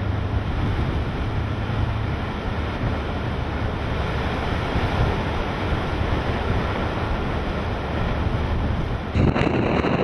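Hurricane-force wind buffeting the microphone, with waves and surf beneath it, as a loud, steady rush. About nine seconds in the sound changes abruptly and grows louder.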